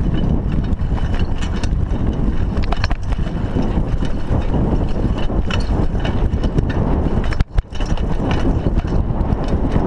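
Riding noise from a Raleigh Ascent mountain bike on a dirt road, picked up by a chest-mounted camera: a steady rumble of wind and tyres on dirt, with frequent clicks and rattles from the bike. The sound drops out for a moment about seven and a half seconds in.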